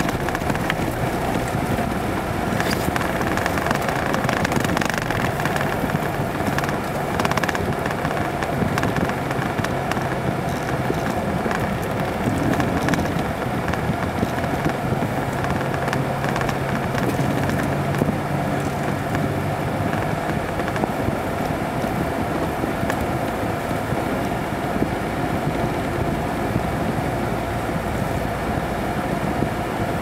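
Jeep driving along a snow-covered road, heard from inside the cab: the engine runs at a steady note under constant tyre and road noise.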